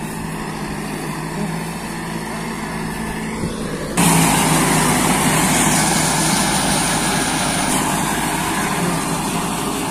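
Kubota tractor's diesel engine running while working a rotavator in a muddy paddy field, a steady hum that becomes louder and harsher about four seconds in.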